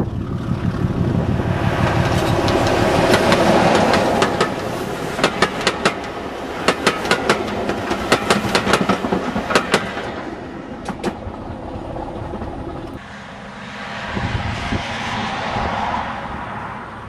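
BR Class 25 diesel locomotive (25027) hauling Mk1 coaches past at speed. Its engine rumble builds to a peak, then the coaches' wheels give a run of sharp clickety-clack beats over the rail joints, which thin out and fade. Near the end there is a softer, even rushing noise.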